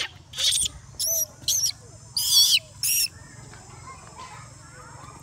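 Macaque giving a series of about five short, high-pitched screaming cries whose pitch wavers up and down, over the first three seconds.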